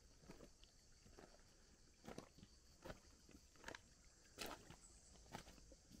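Faint footsteps of a hiker walking over the stones of a shallow creek bed, about one step every three-quarters of a second, the later steps louder, over a steady high hiss.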